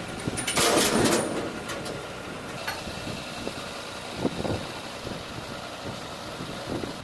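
Diesel engine of an Escorts F15 pick-and-carry crane running steadily at idle. A louder rush of noise comes about half a second in, and a short knock about four seconds in.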